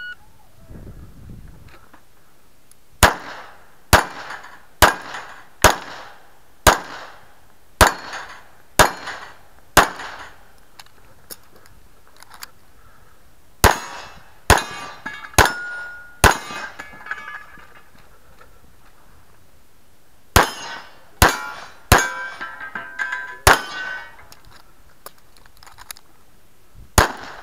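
Pistol shots fired at steel targets, each followed by the ringing clang of a hit steel plate. A string of about eight shots comes about one a second, then, after pauses, shorter groups of quicker shots.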